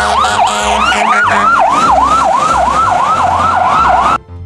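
Electronic siren of a toy rescue vehicle, a fast warbling wail of about four sweeps a second that cuts off suddenly about four seconds in.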